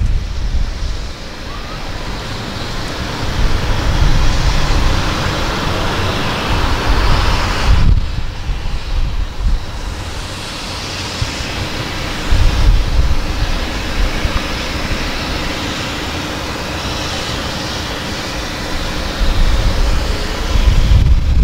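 Wind buffeting the microphone in gusts, with a heavy low rumble at the start, about 8 and 13 seconds in and again near the end, over a steady hiss.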